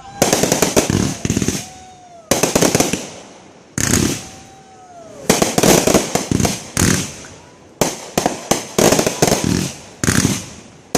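Fireworks going off in quick volleys of bangs and crackling, a new burst every second or two and denser toward the end, with a few faint falling whistles between them.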